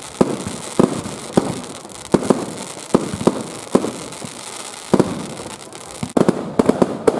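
Aerial firework shells bursting overhead: an irregular string of loud bangs, about one or two a second, with a quicker flurry of bangs near the end.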